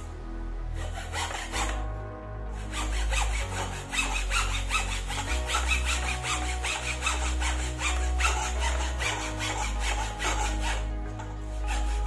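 Hacksaw cutting through a strip of wood in quick back-and-forth strokes, starting about a second in, with a short break near two seconds and easing off near the end. Background music plays underneath.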